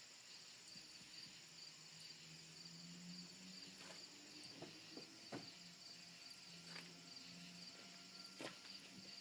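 Near silence: faint, steady cricket chirping with a few soft clicks.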